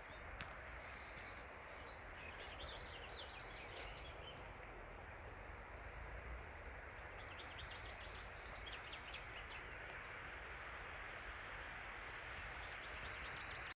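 Steady rush of a mountain stream, with small forest birds chirping over it in quick runs of high notes, a few seconds in and again past the middle.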